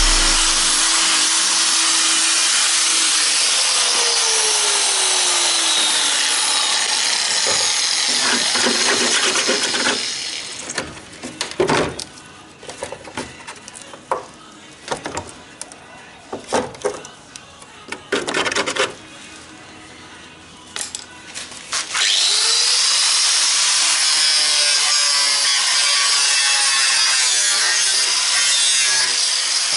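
Handheld power tool running under load on the car body. It runs steadily at first, then works in short irregular bursts with pauses for about the middle third. It spins up again with a rising whine and runs steadily to the end.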